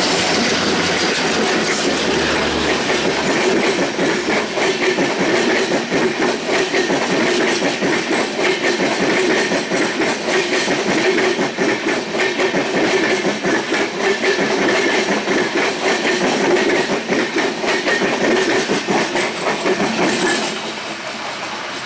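Maitree Express passenger train passing close alongside: a rapid clickety-clack of coach wheels over the rail joints with a steady running noise, which drops off sharply near the end as the last coach goes by.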